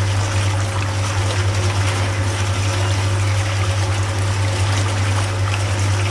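Miniature sugarcane juicer at work, with a low steady hum under a trickle of liquid as its rollers crush cane and juice runs off the chute into a small bucket.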